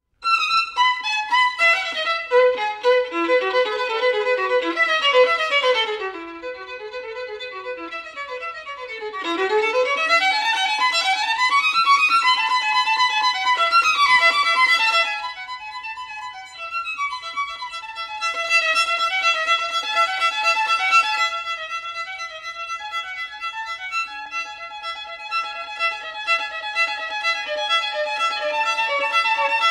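Background violin music: fast runs of notes rising and falling, settling into longer held notes in the last third.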